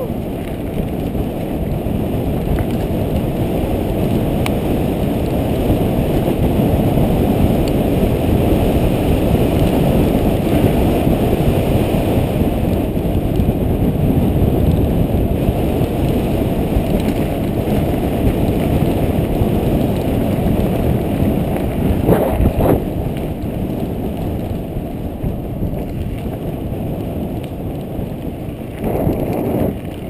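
Wind buffeting the microphone of a GoPro action camera on a mountain bike riding fast downhill, mixed with the rumble and rattle of the tyres and bike over a dirt forest track. The noise is loud and steady throughout.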